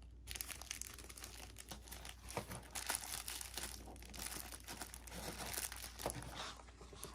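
Plastic wrapping crinkling and rustling in irregular little crackles as small items are handled.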